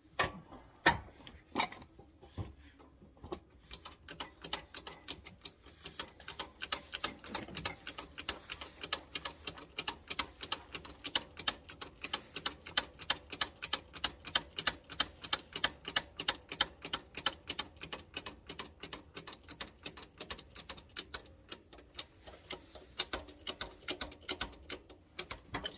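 Rapid, regular metallic clicking, about four clicks a second, kept up for some twenty seconds, like a hand tool being worked on a tractor part. A few separate louder knocks come before it.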